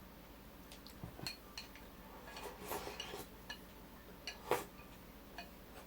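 Tableware clinking and tapping: a scatter of light clicks and short ringing clinks of dishes and utensils, with the sharpest clink about four and a half seconds in.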